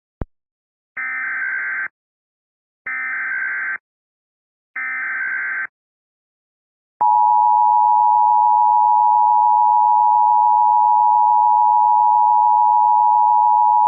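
Emergency Alert System tones: a short click, then three identical bursts of SAME digital header data, each just under a second long. About halfway through, the steady two-tone EAS attention signal starts, louder than the bursts, and sounds on past the end. Together they open a new emergency alert.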